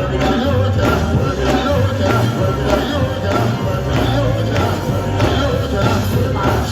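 Live gospel band playing an upbeat groove with bass and drums, with singing over it.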